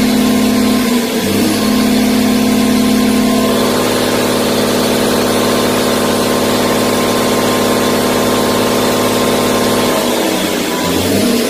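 Doosan DL08 inline-six diesel engine running on a test stand during its first test run after reboring, holding a steady speed. Its note wavers briefly about a second in and changes again near the end as the speed shifts.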